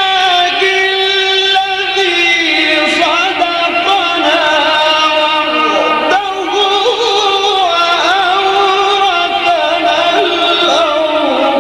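Melodic Quran recitation by a young sheikh, a single male voice holding long drawn-out notes and sliding between pitches in ornamented phrases.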